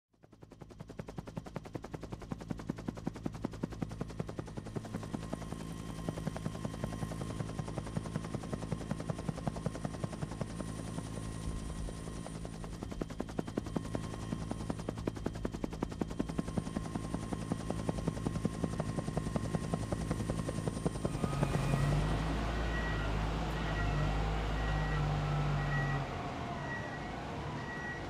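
Helicopter rotor chopping rapidly, with a steady engine hum. About 21 s in it gives way to the heavier, lower rumble of a large diesel slag pot carrier moving, its backup alarm beeping at a steady interval.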